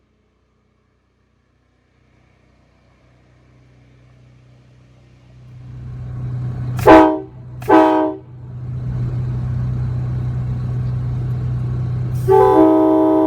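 Nathan Airchime K5LA five-chime train horn sounded in two short blasts a little under a second apart, then a long held blast starting near the end. A steady low hum fades up over the first few seconds and runs under the horn.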